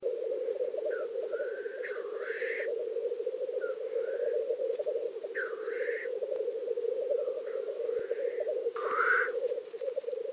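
Lekking black grouse males: a continuous low bubbling rookooing chorus, broken several times by short, hissing, sneeze-like calls rising in pitch, loudest about two, five and a half and nine seconds in. This is the males' territorial mating display.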